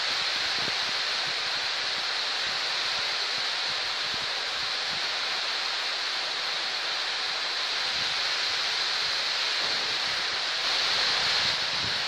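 Heavy rain pouring steadily onto trees and grass, a dense even hiss that swells briefly near the end.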